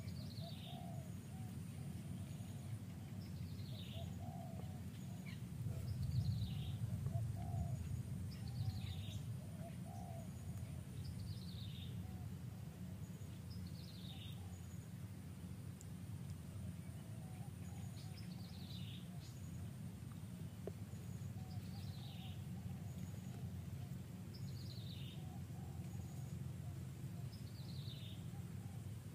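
A bird calling over and over, a short high note sliding downward, repeated about every two seconds, over a steady low rumble that grows louder for a couple of seconds about six seconds in.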